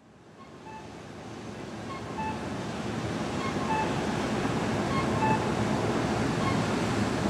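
Steady rushing street ambience fading in over the first few seconds, with faint short high tones scattered through it.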